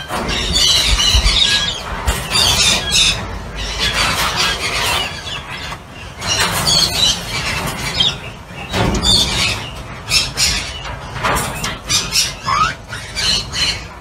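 Australian ringneck parrots calling: repeated shrill squawks and chatter throughout, with a short rising whistle near the end.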